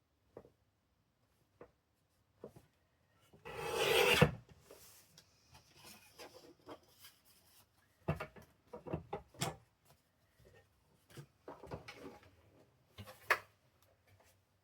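A paper guillotine cutting paper: one rasping stroke of about a second, growing louder and ending in a sharp click. Afterwards come scattered clicks and rustles as the paper and trimmer are handled.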